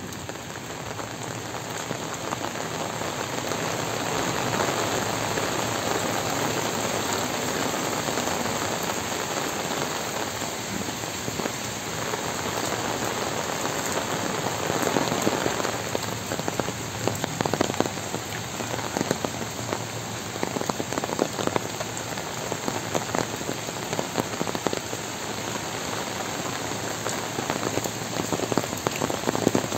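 Heavy rain falling steadily, with scattered sharp taps of individual drops that grow more frequent in the second half.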